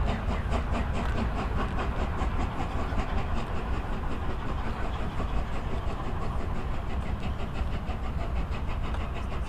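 LNER Peppercorn A1 three-cylinder steam locomotive 60163 Tornado pulling away with its coach, its exhaust beating in a quick even rhythm of about five beats a second over a steady low rumble.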